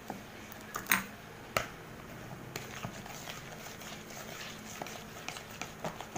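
A plastic spatula stirs a chocolate mixture in a plastic bowl, scraping with many light irregular taps and ticks. There are two sharper knocks about a second in.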